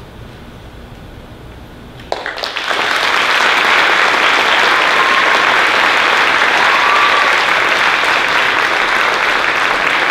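Audience applause breaking out suddenly about two seconds in, after a quiet hush at the end of a choral piece, and swelling within a second into steady, loud clapping.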